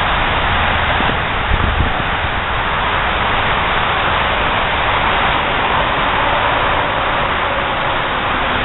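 Steady rushing background noise, with a faint knock or two about one and a half seconds in.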